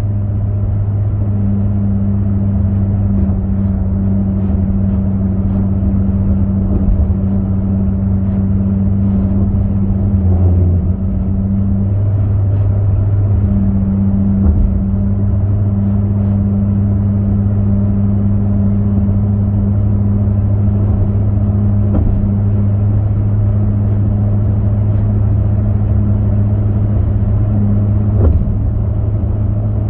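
Steady low drone of a car travelling at highway speed, heard from inside the cabin: engine and road noise with a constant low hum.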